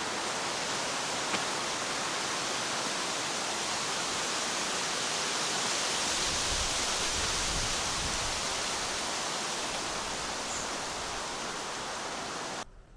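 Steady rushing of flowing water, an even hiss with no rhythm, that cuts off abruptly near the end.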